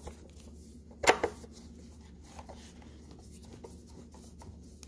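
Hand screwdriver turning small screws into a plastic motorcycle mirror housing: faint scraping and ticking, with a sharp double click about a second in.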